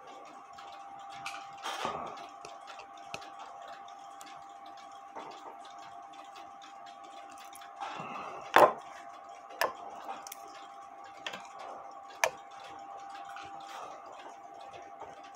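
Nut driver and metal parts of a Regula 25 cuckoo clock movement clicking now and then as the movement's nuts are unscrewed. A loud click comes a little past the middle. A steady faint tone runs underneath.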